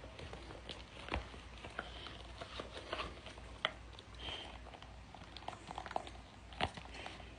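Packaging handled during an unboxing: scattered crinkles, taps and small clicks. Sharper clicks come about a second in, midway and near the end.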